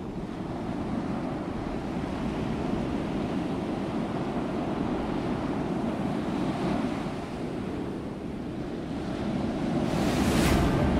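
A steady rushing noise like wind or surf, with a swift whoosh about ten seconds in.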